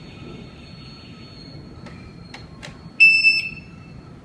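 Wireless home alarm system giving a single short, loud electronic beep about three seconds in, after a few faint clicks.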